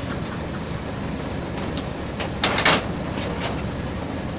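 Steady running noise of a river passenger boat under way, with a brief loud clatter of sharp knocks about two and a half seconds in.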